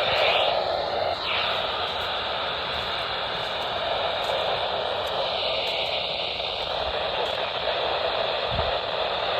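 Radio static: a steady, even hiss from a radio receiver on a weak, noisy signal.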